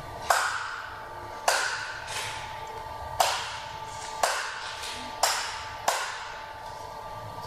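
Light switches clicking six times at uneven intervals, each click echoing in the bare room as the ceiling chandelier and LED spotlights are switched on, over a faint steady tone.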